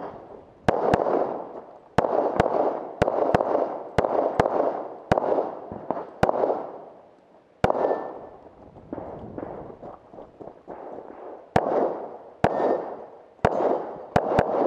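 Pistol fired in quick strings of shots, over a dozen in all, each crack trailing off in a short echo, with a pause of about four seconds midway through.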